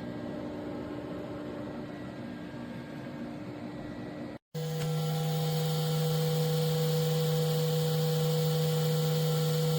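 Air fryer toaster oven running: a steady hum of its convection fan and motor. After a brief cut about four and a half seconds in, the hum comes back louder and deeper.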